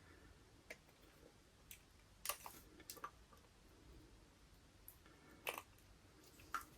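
Faint scattered metallic clicks and taps of a circlip and tool working against a brake master cylinder while trying to seat the circlip in its bore.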